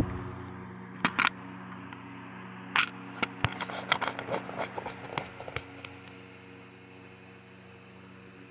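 Restored Hunter Zephair 12-inch electric desk fan running steadily, its motor giving a steady hum with a soft rush of air. Sharp clicks and knocks from handling come through the first six seconds or so, then stop, leaving the fan alone.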